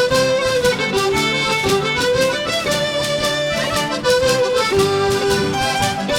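Folk band playing an instrumental passage of a traditional tune: melodeon to the fore, with guitar, fiddle and percussion keeping a steady beat.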